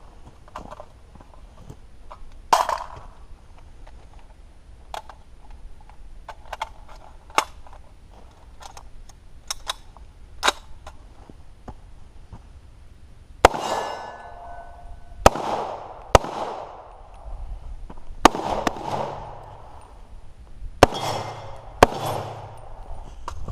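A scatter of light clicks and knocks, then six gunshots from an AR pistol at uneven spacing beginning about halfway through, each followed by a long echo.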